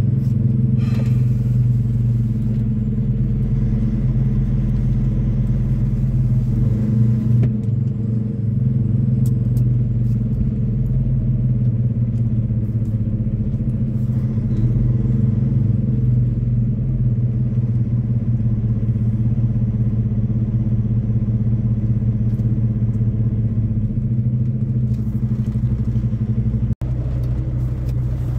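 Semi-truck diesel engine and road noise heard from inside the cab, a steady low drone. It cuts out for an instant near the end.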